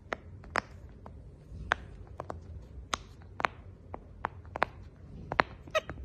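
Bubbles of a silicone pop-it fidget toy being pressed by a capuchin monkey's fingers: a run of sharp, irregular pops, about two or three a second.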